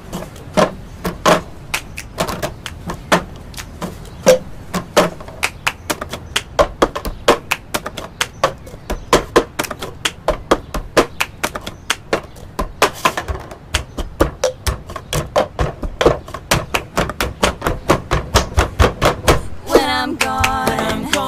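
Cup-game percussion: cups tapped and slammed on a tabletop in a quick repeating pattern of sharp strikes, several a second. Near the end, music with held notes comes in.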